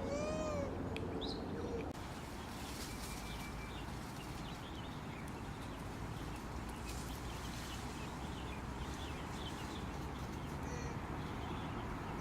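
Macaques giving drawn-out, arching tonal coo calls, one held for a second or so. After about two seconds the calls stop, leaving a steady background hiss with faint, scattered high chirps.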